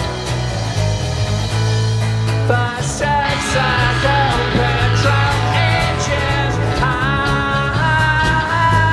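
A live rock band playing an instrumental passage: steady bass notes and drums with cymbals, with a guitar line bending and wavering in pitch from about three seconds in.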